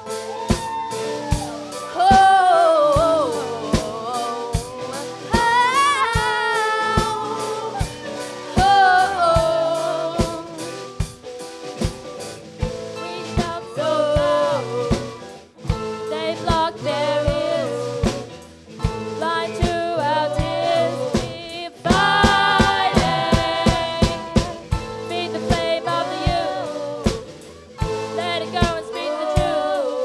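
Live band playing a song: a lead singer holding wavering notes over keyboard, electric guitars and a drum kit keeping a steady beat.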